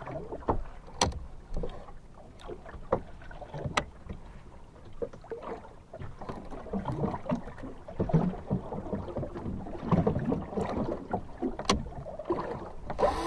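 Water slapping and lapping against the hull of a small open boat drifting with its outboard off, with scattered irregular knocks and clicks.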